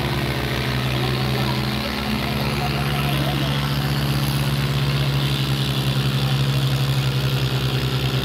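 Tractor diesel engines running hard at full throttle under heavy pulling load, a steady low pulsing drone that grows a little louder near the end. Crowd voices mix underneath.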